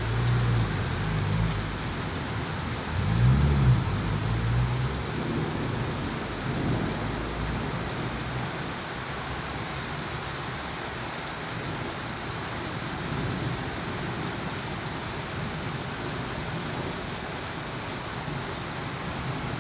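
Steady rain falling, with a low rumble in the first five seconds that is loudest about three and a half seconds in.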